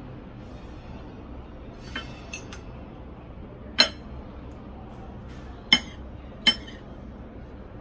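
A metal fork clinking against a ceramic plate: a few light taps about two seconds in, then three sharp clinks, louder than anything else, spread over the next few seconds, over a steady low hum.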